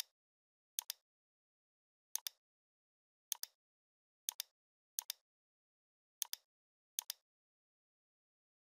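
Computer mouse clicks, about eight of them at irregular intervals, each a quick press-and-release double tick, with dead silence between. The clicks open a dropdown menu and pick options from it.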